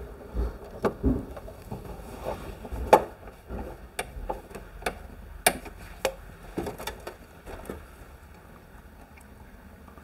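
Scattered sharp clicks and light knocks of a screwdriver and hands working at the terminals of an electrical distribution board, the loudest about three and five and a half seconds in, thinning out after about seven seconds.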